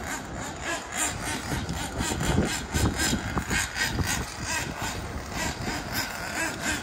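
Small nitro (glow-fuel) engine of a Kyosho Inferno NEO ST 3.0 RC truck running unevenly, with a wavering high tone and dense irregular clicks and rattling over it.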